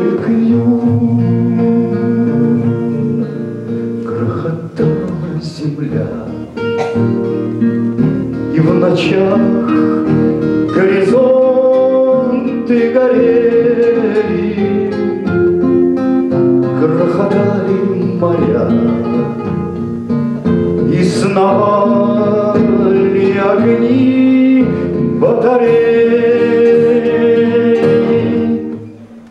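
A man singing a bard song in Russian to his own acoustic guitar, with long held notes over plucked and strummed chords.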